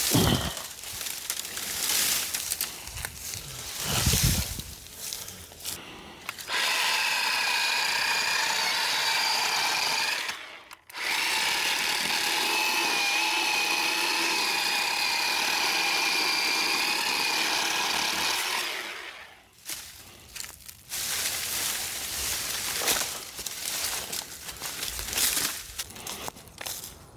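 Worx 20V cordless electric chainsaw running in two stretches, about four seconds and then about eight seconds with a brief stop between, its motor giving an even, steady whine. Before and after it, branches rustle and crackle.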